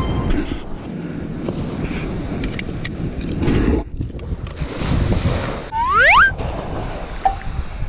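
Surf washing onto the beach with wind buffeting the microphone. About six seconds in, a short rising swoosh sound effect.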